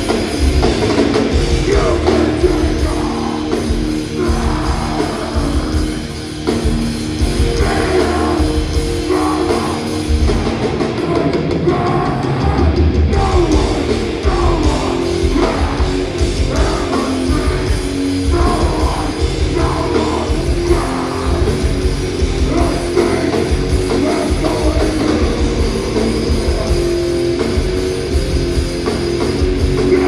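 A metallic hardcore band playing loud live, with distorted guitars and a drum kit and vocals over the middle stretch.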